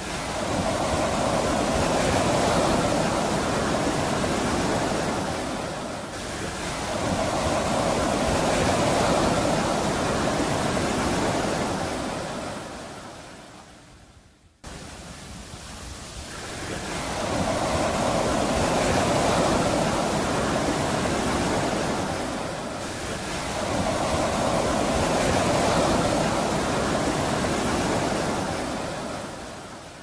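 Sea waves breaking and washing in slow surges that swell and ebb over several seconds each, four in all. About halfway through the sound fades almost to nothing and then cuts back in suddenly.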